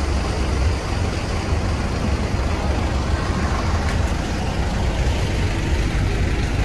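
Steady low rumble of street traffic and engines, with the general noise of a busy city street.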